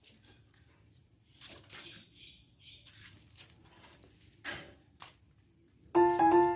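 Faint, intermittent rustling and scratching with a few small clicks. Music with plucked, piano-like notes starts near the end.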